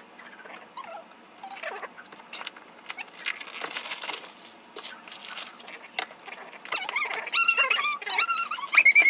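Small cardboard product box being cut open and unpacked: clicks, scraping and rustling of card and packaging. From about seven seconds in, high-pitched squeaky whining tones come in and become the loudest sound near the end.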